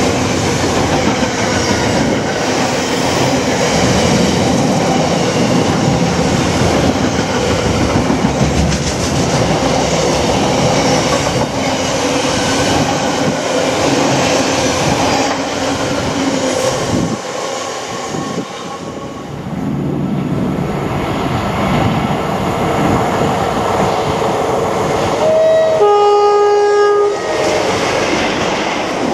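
Container freight train running past at speed, the wagons clattering over the rail joints; the noise fades a little over halfway through. Then a Class 47 diesel locomotive comes through and sounds its two-tone horn a few seconds before the end, a short high note followed by a longer low one.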